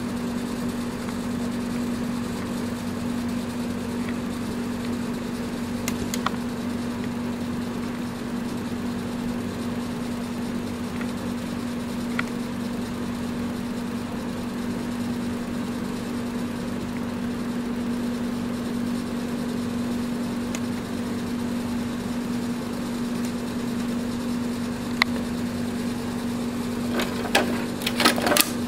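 A steady low machine hum at an even pitch, with a few faint clicks scattered through it. Near the end comes a quick cluster of sharp plastic clicks and knocks as the printer's front control panel is handled.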